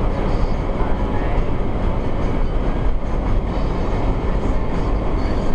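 Steady engine, tyre and wind noise of a car driving fast, heard from inside its cabin through a dashcam microphone, with a deep continuous rumble.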